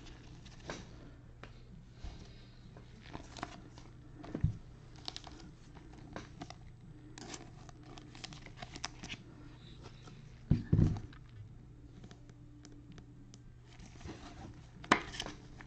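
Plastic card sleeves and top loaders rustling and crinkling as trading cards are slid into them by gloved hands, with scattered light clicks. A couple of dull thumps come near the middle and a sharp knock near the end.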